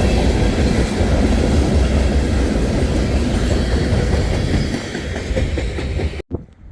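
A train rolling past close by, its wheels rumbling and clattering over the rails, easing a little before the sound cuts off abruptly about six seconds in.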